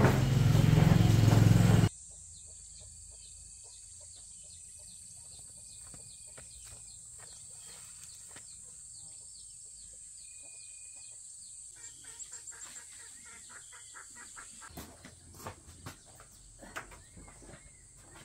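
A loud low rumble stops suddenly about two seconds in. After it come chickens clucking and small birds chirping, with the clucks more frequent over the last few seconds.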